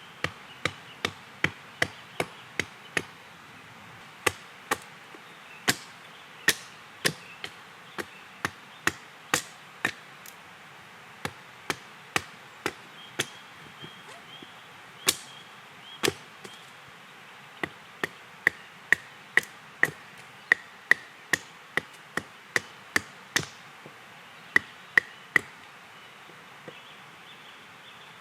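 Axe chopping green wild cherry wood on a chopping stump, roughing out spoon blanks: runs of sharp strikes, about two a second, broken by short pauses.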